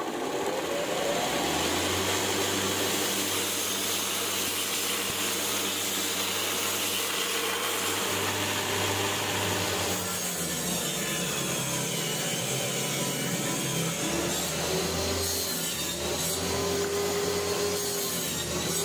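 Homemade 2x72 belt grinder with stacked plywood wheels on 6201 bearings, its electric motor finishing spinning up with a rising whine, then running steadily with the belt turning. About halfway through, the sound changes abruptly to a different workshop noise.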